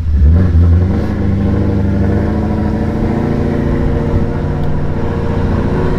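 Ford Mustang 5.0 V8 with a ghost cam tune, run through long-tube headers, an X-pipe and an axle-back exhaust, driving slowly with the choppy, uneven lope that the tune adds. It is loud, with a heavier low burst in the first second; the engine note then rises a little and holds steady.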